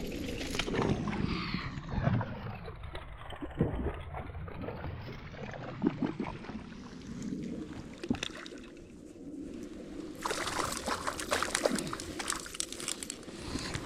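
Water sloshing and splashing around a kayak, with scattered knocks and clicks; the splashing gets louder about ten seconds in.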